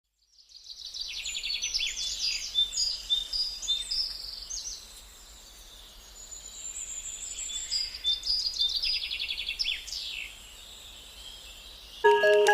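Small songbird singing in fast, high trills and chirps, in two bouts with a pause of about two seconds between them. Music starts right at the end.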